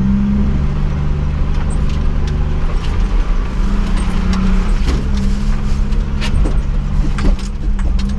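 1989 Jeep Wrangler YJ engine running steadily while the Jeep crawls up a rocky trail, with scattered clicks and knocks from about three seconds in.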